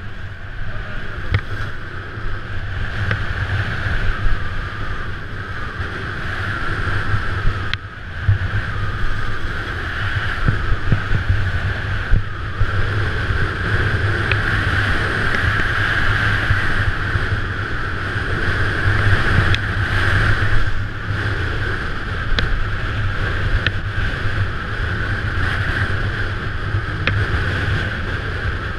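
Wind rushing over a skiing GoPro's microphone, with skis scraping and hissing on packed snow during a downhill run. There is a brief lull about eight seconds in.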